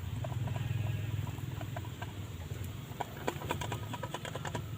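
A pot of banana heart boiling over a homemade wood fire: irregular small pops and crackles over a steady low rumble, coming thickest about three seconds in.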